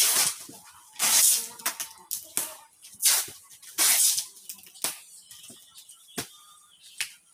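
Plastic wrapping on stacked bundles rustling and crinkling in several loud bursts as they are handled and shifted, followed by a few sharp knocks in the second half.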